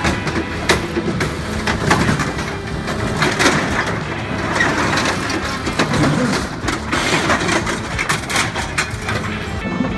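VTN CI 7000 hydraulic scrap shear on an excavator cutting and crushing a bulldozer's steel, with repeated loud cracks and snaps of tearing metal over the machine's running engine.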